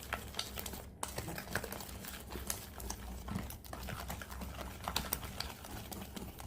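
Hand-mixing in a mixing bowl: a utensil clicking and scraping against the bowl in quick irregular taps as an egg is beaten into creamed butter and sugar.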